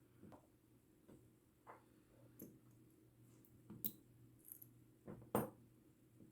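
Light, scattered clicks and taps of small metal padlock parts and tweezers being handled, about half a dozen in all. The sharpest click comes about five seconds in.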